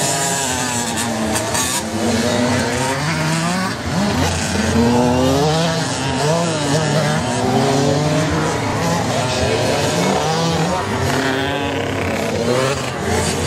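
Several small two-stroke kids' motocross bikes revving up and down as they ride around the track, their engine notes overlapping and rising and falling continuously.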